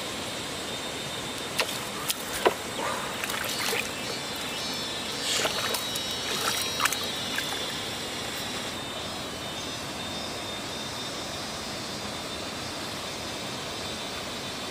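Water splashing and trickling in a few irregular bursts over a steady background hiss; the splashing stops about halfway through.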